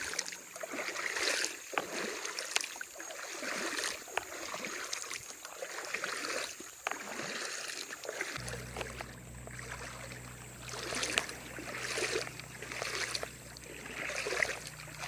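Someone wading through shallow creek water, a slosh or swish of water with each stride, repeating about once a second. A low steady rumble joins about halfway through.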